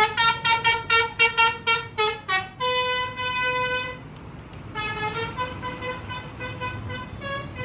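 A bus's 'telolet basuri' musical horn playing a tune: a quick run of short toots, one long held note, a brief pause, then another run of notes. A low engine and traffic rumble sits underneath.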